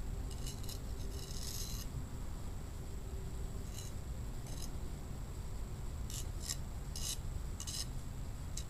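A hand tool scraping and carving wet hardpan in a posthole: a series of short, irregular scrapes, one longer about a second in, over a steady low rumble.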